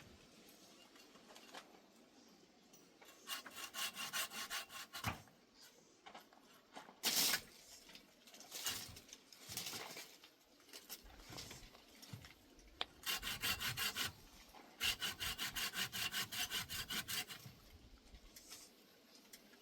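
Hand saw cutting wood in three bouts of quick back-and-forth strokes, about four a second, with a short louder scrape about seven seconds in.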